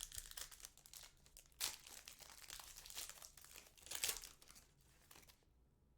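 Trading card pack wrapper being torn open and crinkled by hand, in irregular rustling bursts, the loudest about a second and a half in and again about four seconds in, dying away shortly before the end.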